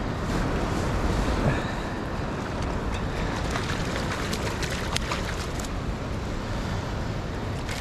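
Steady rush of river water with wind buffeting the microphone, and a few faint clicks or splashes in the middle.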